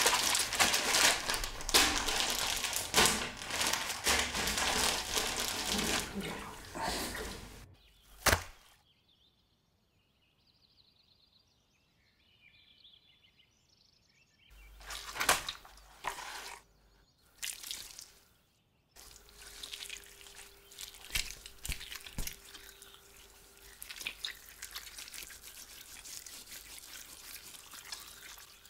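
Wet plastic bags crinkling and rustling around a large raw sturgeon, with dripping water. A single sharp thunk comes about eight seconds in, then a few knocks, and near the end a knife scraping and cutting into the fish behind its head.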